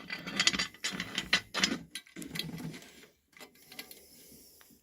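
A vending-machine lock being fitted into the lid of a candy canister machine and turned with its key: a quick run of clicks and rattles for the first couple of seconds, then a few fainter ticks.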